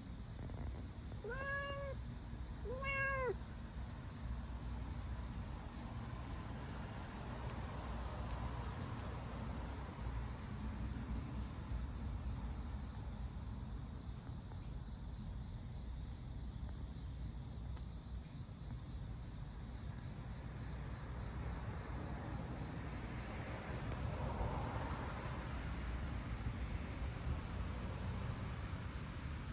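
A domestic cat meows twice, two short calls that rise and fall about a second and a half apart near the start. A steady low background rumble runs underneath.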